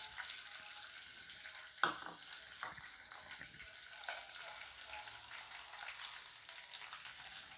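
Split moong dal and then rice poured into a hot aluminium pot over oil-fried peas and garlic, giving a faint sizzling hiss with a few light clicks as the grains land.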